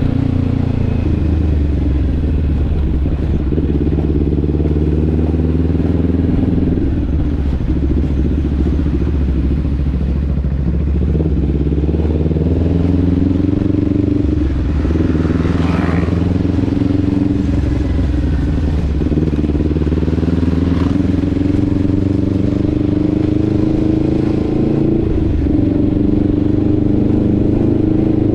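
Motorcycle engine running under way, its pitch repeatedly rising and falling with throttle and gear changes. A brief hiss-like sweep comes about halfway through.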